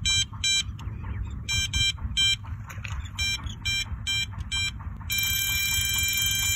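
Electronic bite alarm on a carp rod beeping in quick, irregular short high beeps, then holding one continuous tone from about five seconds in: line is running out through the alarm as a fish takes the bait.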